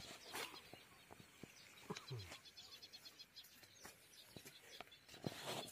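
Quiet outdoor ambience with faint bird chirps, including a quick run of high chirps in the middle, and a few light clicks.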